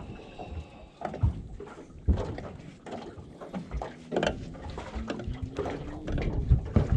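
Scattered clicks and knocks close to the microphone from hands handling braided fishing line and a metal split ring while tying a knot, over a low rumble of wind and water.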